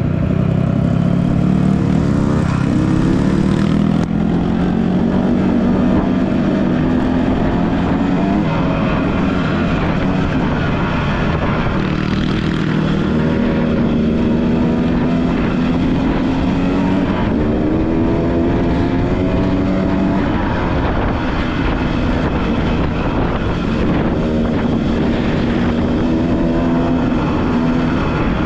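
Off-road motorcycle engine running hard, its pitch rising and falling again and again as the throttle is opened and closed.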